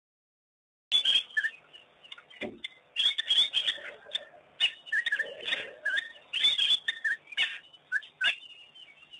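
African wild dogs twittering: a rapid, irregular string of short, high-pitched chirps and squeaks, starting about a second in.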